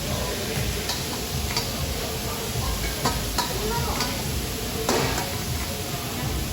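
Restaurant counter ambience: a steady hubbub of background voices and kitchen noise, with scattered clinks and clatter of utensils and dishes.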